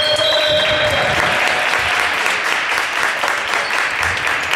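Applause: many people clapping in a sports hall, players on court among them, with a dense patter of hand claps.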